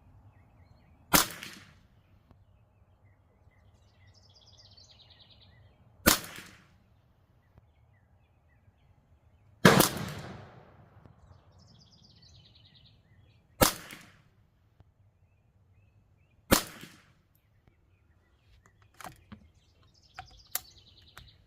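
Custom Ruger 10/22 .22 LR semi-automatic rifle with a Lilja barrel firing five single shots, spaced three to five seconds apart, followed by a few lighter clicks near the end. Birds chirp faintly between the shots.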